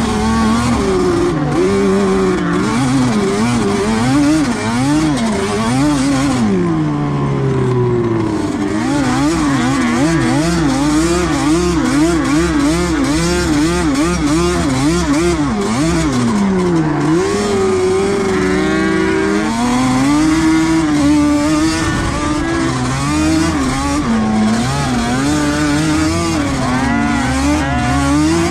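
Yamaha sport quad engine running hard in the sand, its revs rising and falling constantly with the throttle. Twice the pitch drops away as the throttle eases off, about six and sixteen seconds in, before it climbs again.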